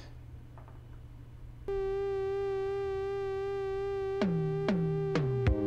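Unknown electronic music playing from a phone as it is sampled: a steady held tone rich in overtones starts about a second and a half in. Near the end come a few sharp drum hits, each falling quickly in pitch, about half a second apart.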